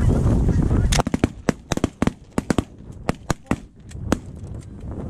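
A rapid volley of shotgun blasts from several hunters, more than a dozen shots in about three seconds, starting about a second in. The shots are fired at a flock of geese passing low overhead. Wind buffets the microphone before the shooting starts.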